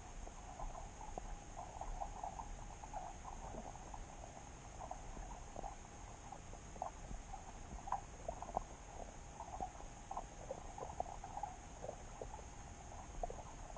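Underwater sound picked up by a submerged camera: a dense run of faint, irregular clicks and crackles over a steady hiss.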